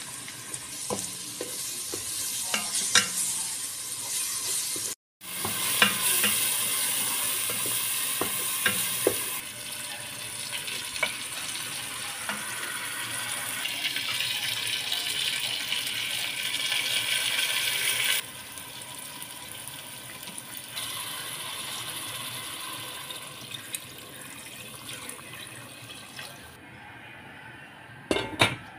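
Lamb, onions and spices frying in oil in a pot, a steady sizzle with the clicks and scrapes of a wooden spoon stirring against the pot. The sizzle is louder after a brief break about five seconds in. Near the end the lid knocks onto the pot.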